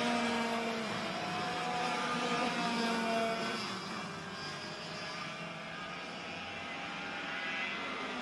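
Several two-stroke racing kart engines running at high revs as a group of karts passes, their pitches sliding up and down as they accelerate and lift. The engines are louder in the first few seconds, then fall back somewhat.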